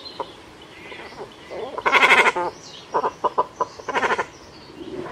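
Recorded bird calls: three harsh, drawn-out calls about two seconds apart, with a quick run of short notes between the second and third.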